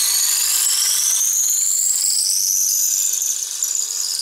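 Wood lathe spinning a wooden blank while a Veritas 3/8-inch dowel maker's blade shaves it down to a dowel. It makes a loud, high-pitched whine that climbs steadily in pitch, dipping in level near the end.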